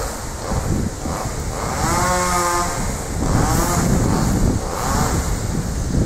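Wind buffeting the microphone, a steady low rumble. About two seconds in a distant wavering call sounds for about a second, followed by two fainter, shorter ones.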